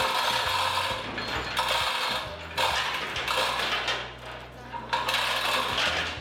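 Manual chain block being hauled by hand: the chain rattles through the hoist and the ratchet clicks in about four pulls with short pauses between, lifting a generator engine.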